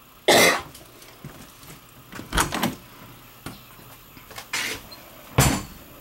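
Wooden bathroom door of a travel trailer being opened, with four short, loud knocks and rattles over a few seconds.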